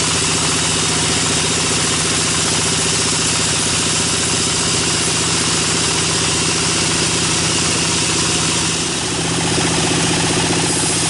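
Band sawmill running, its blade cutting lengthwise through a log, a steady machine hum with a hiss over it. About nine seconds in the sound dips and shifts as the blade comes out of the end of the log.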